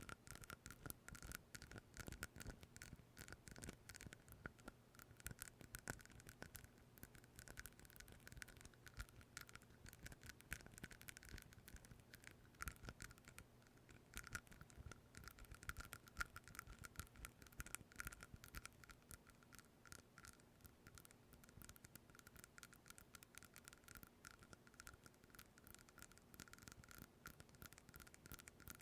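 Rapid, dense scratching and tapping on an object held close to a microphone, a continuous run of fine clicks with a faint ringing tone underneath.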